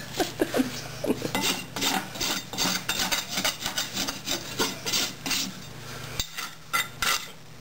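A farrier's rasp filing a horse's front hoof in a run of even strokes, the finishing rasp of a newly shod foot; the strokes stop about six seconds in.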